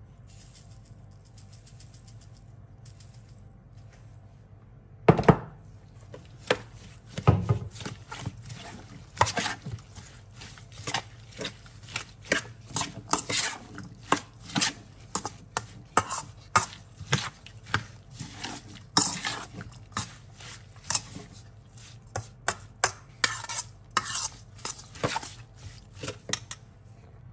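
Metal spoon tossing a wet chopped vegetable salad in a stainless steel bowl: irregular clinks, knocks and scrapes of the spoon against the bowl, one or two a second, starting about five seconds in.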